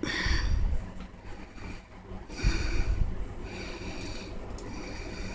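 Two heavy nasal breaths close to the microphone, about two and a half seconds apart, each a short puff of breath noise with a low rumble.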